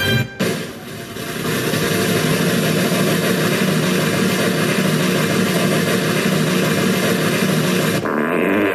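A steady, loud engine-like noise that builds up over the first second or so and holds; its upper part drops away near the end, and it stops just before the end.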